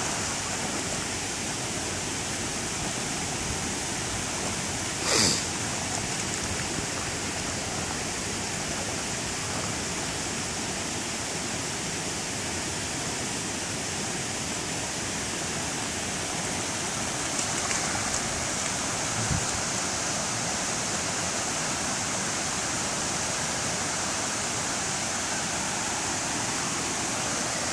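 Shallow creek water rushing steadily over limestone ledges, with a brief louder noise about five seconds in.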